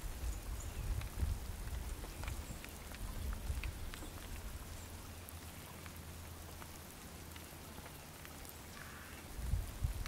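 Light rain pattering: a soft, steady hiss scattered with small drop ticks, over a low rumble that eases off in the middle and swells again near the end.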